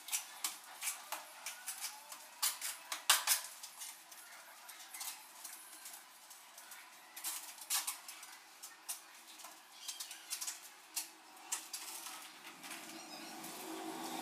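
Tiler's trowel scraping and clinking in a metal basin of cement mortar and on a ceramic wall tile: irregular sharp scrapes and taps, loudest about three seconds in.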